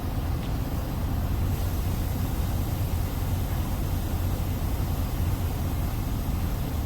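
Diesel engine of a 2017 Freightliner semi truck running steadily at low revs, an even low rumble.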